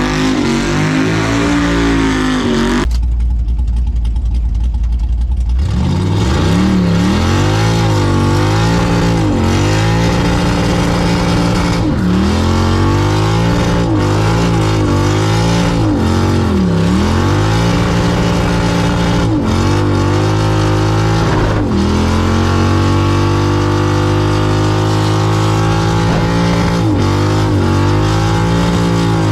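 Texas Speed 416-cubic-inch LS3 V8 running loud, its revs dropping and climbing again and again. About three seconds in, a short stretch holds only a deep low rumble.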